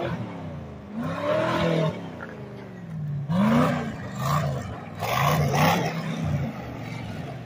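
Twin-turbocharged rat-rod truck's engine revving, its pitch rising and falling several times as it drives and turns off the road. The loudest surges come in the middle of the stretch.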